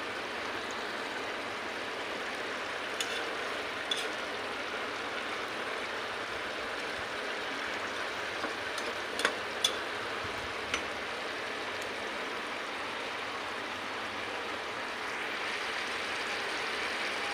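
Thick shrimp and kochur loti curry bubbling and sizzling in a saucepan as it is reduced until the oil separates, a steady hiss that grows a little louder near the end. A few sharp clicks of a spoon against the pot.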